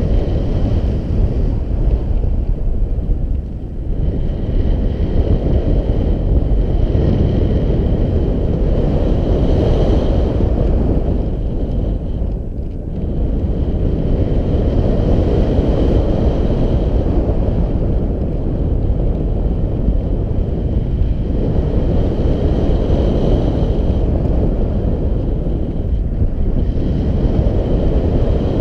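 Airflow rushing over the camera microphone in paraglider flight: loud, continuous low wind noise that swells and eases, dropping back briefly a couple of times.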